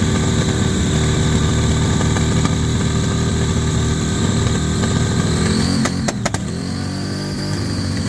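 Big supercharged engine of a custom show car running loud and lumpy with its engine bay open; about five and a half seconds in its pitch shifts, with a few sharp cracks around six seconds.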